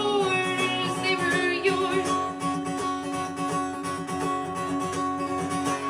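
Acoustic guitar strummed in a steady rhythm with a woman singing a line over the first second or so, then the guitar carrying on alone with its chord ringing.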